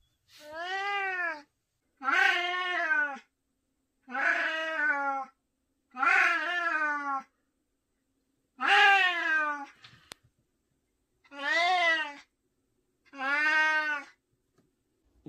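A 16-year-old white long-haired cat meowing over and over: seven drawn-out meows, each about a second long, coming about every two seconds. A single faint click comes about ten seconds in.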